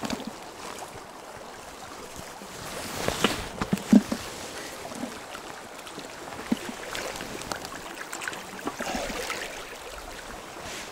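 Shallow river running over stones, with a few short knocks and splashes close by, the loudest about four seconds in.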